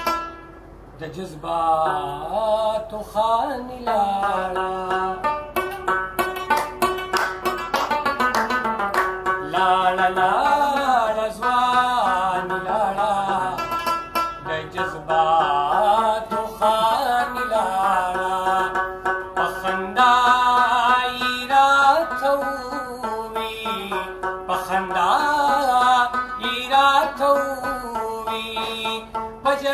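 Afghan rabab played solo: a plucked melody that slides and wavers in pitch, with quick runs of plucked notes and a steady lower note ringing underneath. A man's singing voice joins near the end.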